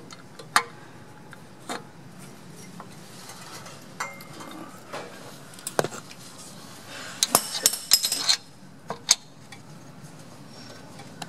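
Metal clinks and light knocks as an oil pump with its pickup tube is offered up and seated against the underside of a Chrysler 318 V8 block. Scattered single clinks, with a quick run of several about seven to eight seconds in.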